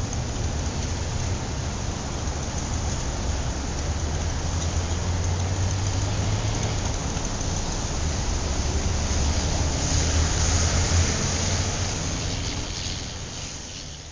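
Steady road-traffic noise, a low rumble under a broad hiss, fading out near the end.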